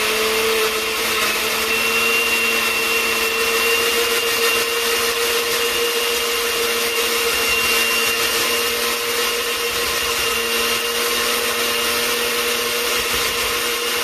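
Countertop electric blender running at one steady speed, pureeing boiled broccoli in a little of its cooking water. The motor gives a steady hum and high whine over the churning liquid.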